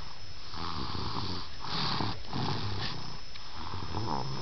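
Snoring in steady rhythm, one noisy breath after another, about one a second.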